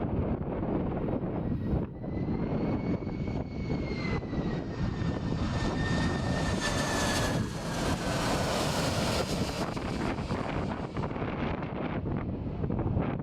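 Airplane passing overhead: a high engine whine holds, then slides slowly down in pitch, while a rushing engine noise swells to its loudest about eight seconds in and fades. Wind rumbles on the microphone throughout.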